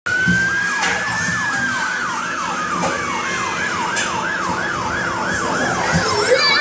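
Electronic fire-engine siren from a toy play dashboard's speaker. It starts as a held high note, then changes into a quick repeating yelp, each cycle dropping sharply in pitch, about three times a second. Faint knocks can be heard under it.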